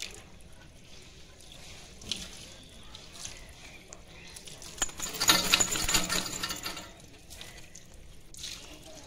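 Water from a garden hose splashing over a wet dog's coat and onto the concrete floor as the shampoo is rinsed off, with a louder spell of spattering about five seconds in that lasts about two seconds.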